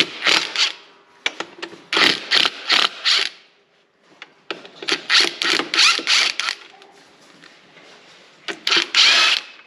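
Hand socket ratchet clicking in repeated strokes as 9/16 bolts are backed out of a John Deere 4010 clutch pack. The strokes come in four groups with short pauses between them.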